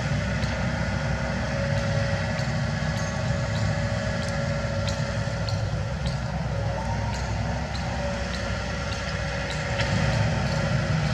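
Kobelco SK75 mini excavator's diesel engine running steadily, with a few light clicks over it.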